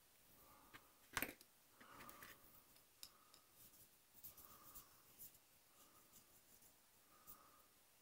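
Near silence with faint clicks and light rubbing of small hobby tools and plastic model parts being handled, and one sharper click about a second in.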